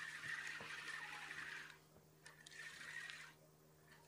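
Spinning reel being cranked to wind in a bottom rig, a faint steady whir in three spells with short pauses between them.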